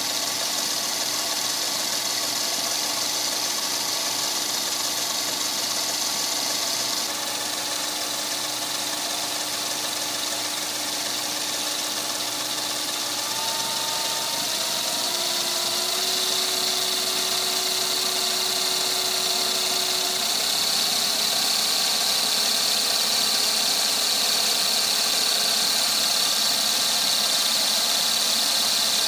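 Smarty AT-300 lathe running on its belt drive, powered by a 750 W three-phase motor on a variable-frequency drive. A steady whine and hiss, with the pitch stepping up in several stages about halfway through as the drive frequency is raised to about 70 Hz, roughly 1900 spindle rpm.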